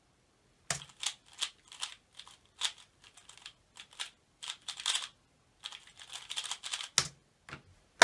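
Rubik's cube turned at speedsolving pace: a fast run of plastic clicking and clattering turns for about six seconds, with short pauses between bursts. A sharp knock comes about seven seconds in, and a louder knock at the very end.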